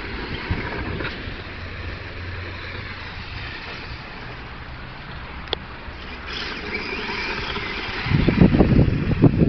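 Remote-control drift car running and sliding on asphalt: a steady whirring hiss of motor and tyres. Gusts of wind buffet the microphone in the last second or so.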